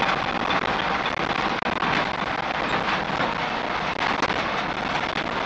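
Land Rover Series III 109 breakdown truck driving along, heard from inside the cab: steady engine and road noise with many small clicks and rattles throughout.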